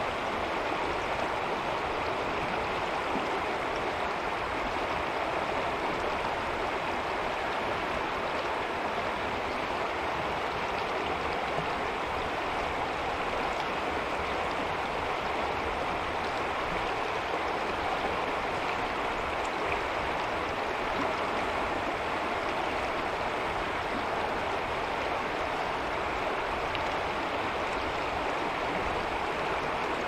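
Shallow Mohawk River water running over rocks and riffles: a steady rushing babble with no change.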